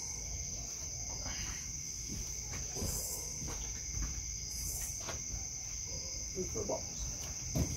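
Steady high trill of crickets in the background, with a few light clicks and taps as the outboard's lower-unit parts are handled.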